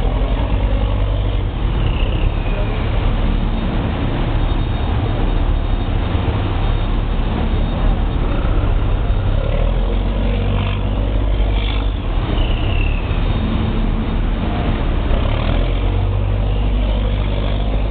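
Steady low drone of heavy offshore machinery running, with a noisy rush over it and a few faint brief whines higher up.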